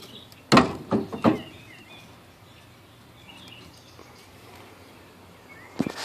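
Three sharp knocks or clunks in quick succession about half a second to a second and a half in, and two more near the end, with birds chirping faintly in between.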